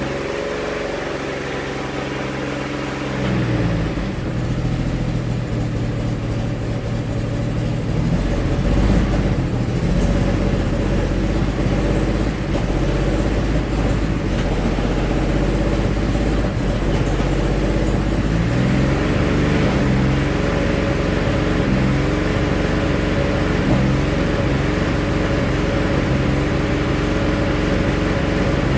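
GM 3800 Series III V6 engine running, misfiring and running rich; its engine speed shifts a few times.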